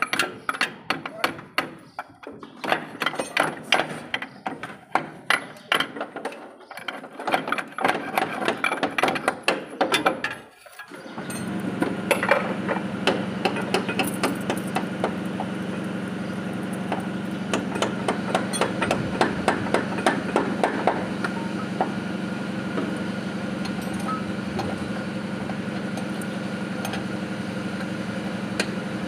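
Rapid, irregular hammer blows on metal for about the first ten seconds, then a steady machine hum starts and runs on, with a few knocks over it at first.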